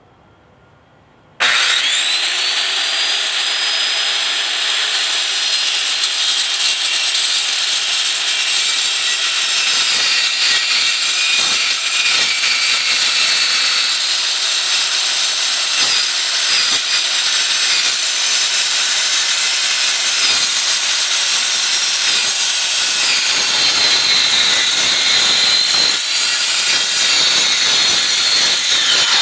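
Circular saw with a 7¼-inch Lenox steel-cutting blade starting up about a second in and cutting through 1/8-inch steel plate: a loud, steady, high-pitched cutting sound whose whine dips slightly under load now and then. It stops abruptly at the end.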